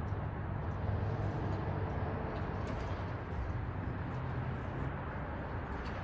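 Steady low rumble of city traffic, with a few faint high ticks over it.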